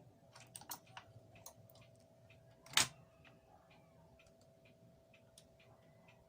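Garrard SL-95 record changer running, its changer mechanism giving off irregular light clicks and ticks with one louder clack about three seconds in, over a faint steady motor hum. The turntable is stuck in auto repeat, cycling again instead of returning and stopping, a fault blamed on hardened grease in the cam wheel's spring mechanism.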